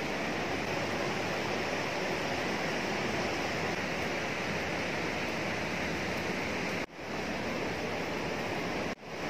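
Steady rush of flowing water in a cave, an even hiss-like noise that cuts out briefly twice near the end.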